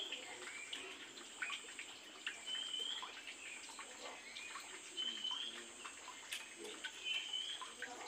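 Oriental magpie-robin giving short, high whistled phrases about every two to three seconds, with scattered soft chirps and clicks between them; faint.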